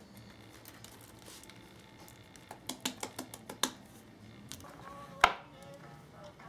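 Small hard objects knocking and clicking: a quick run of light knocks, then one sharp, louder click about five seconds in.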